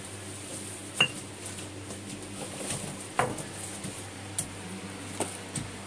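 A metal spoon clinking against a bowl while stirring dry spice powder: several sharp clinks, the loudest about a second in.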